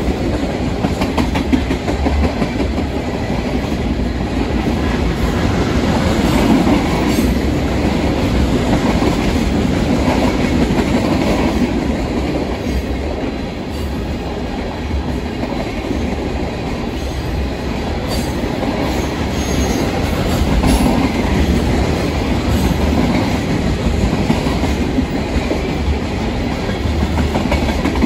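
Freight train cars rolling past close by: a steady, loud noise of steel wheels running over the rails, unbroken throughout.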